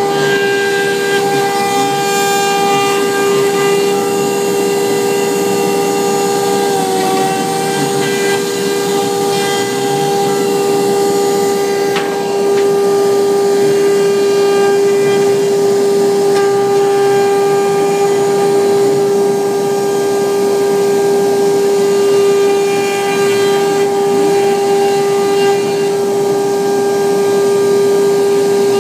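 CNC router spindle running at high speed while its bit mills an inlay piece: a loud, steady high whine with a faint dip in pitch about seven seconds in.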